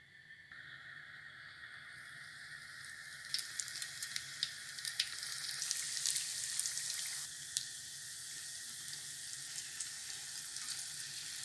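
Pieces of pişi yeast dough frying in hot oil in a pan: a sizzle that builds over the first few seconds, with crackling pops from about three seconds in.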